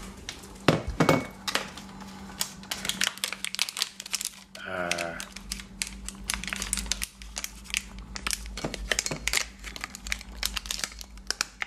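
Wet cat food pouch being crinkled and squeezed by hand, a long run of irregular sharp crackles as the food is pressed out into a bowl.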